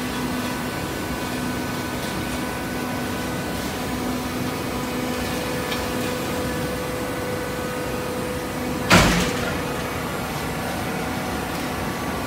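Horizontal hydraulic baling press running with a steady hum with a low tone, from its motor and hydraulic pump. One loud bang about nine seconds in.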